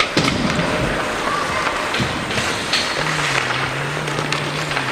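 Match noise in a sports hall: scattered knocks and thumps over a steady background din, with a low droning tone coming in about three seconds in.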